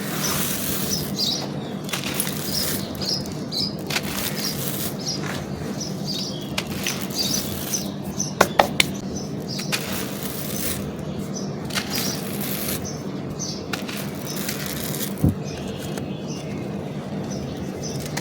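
Dry charcoal and baked clay being crumbled and crushed: a run of short crunches and crackles, with a few sharp cracks about eight and a half seconds in and a dull knock about fifteen seconds in.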